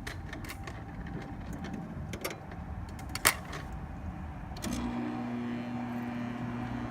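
A few clicks, one sharper than the rest, then about two-thirds of the way through the Amana Cool Zone window air conditioner's compressor kicks on with a steady buzzing hum. It jump-starts right away, with only a bit of buzzing despite its aging, weak start capacitor.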